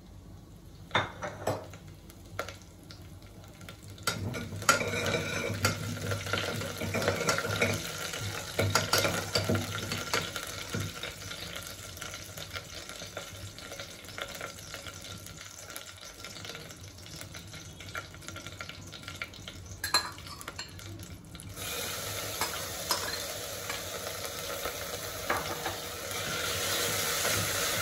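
Hot oil sizzling in a pot with dried red chillies and curry leaves, with a few sharp clinks of a steel spoon at the start. The sizzling grows stronger near the end as a chopped ingredient is tipped in and stirred with the spoon.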